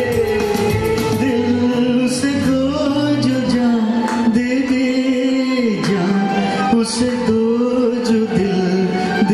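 A man singing long, drawn-out notes into a microphone over a karaoke backing track of a Hindi film duet.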